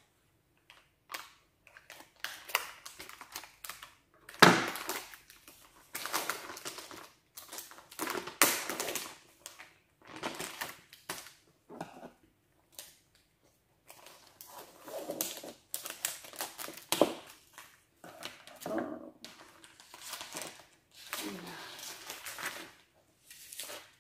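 Irregular crinkling, rustling and knocking as a potted houseplant in its small pot is handled, with one sharper knock about four and a half seconds in.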